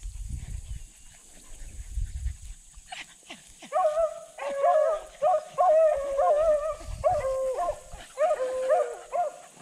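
Hunting hounds baying on a rabbit's trail: after about three seconds of quiet with a little wind rumble, the dogs open up in a run of rising-and-falling bays, about two a second, that carry on to the end.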